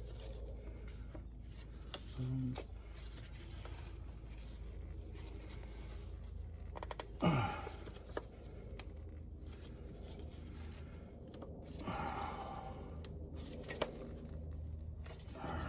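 Parts and hand tools being handled during reassembly of the engine's injector-side components: scattered light clicks and rustling over a low steady hum, with one brief scrape that falls in pitch about seven seconds in.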